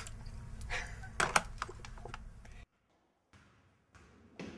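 Light taps and clicks of small objects handled on a dressing table, over quiet room tone, cutting off to silence about two-thirds of the way through.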